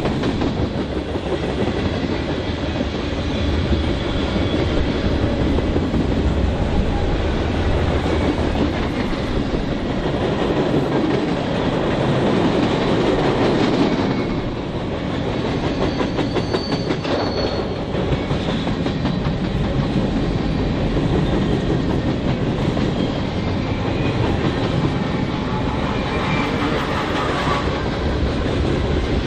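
Freight train cars rolling past at speed in a steady rumble, their steel wheels clacking rhythmically over the rails, with a few faint high wheel squeals.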